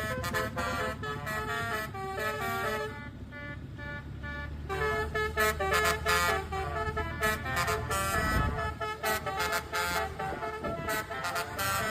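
Indonesian bus 'basuri' telolet horn playing a quick melody of short, stepped notes over the low, steady hum of the bus engine.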